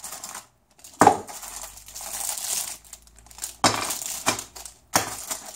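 Clear plastic packaging tray and small plastic accessory bags crinkling and crackling as they are handled, with several sharp crackles.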